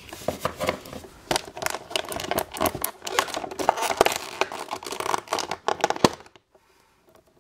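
Hands handling small plastic doll toys: a dense run of clicks, scrapes and crinkles that stops about six seconds in.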